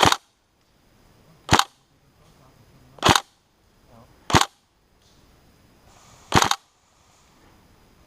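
Airsoft electric gun, a Tokyo Marui SCAR-H, fired in single shots: five sharp, loud shots one to two seconds apart.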